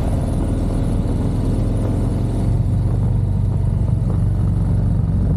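Harley-Davidson air-cooled V-twin motorcycle engine running steadily while riding.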